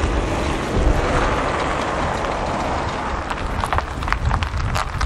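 Steady outdoor traffic noise with a low rumble, then footsteps from about three seconds in.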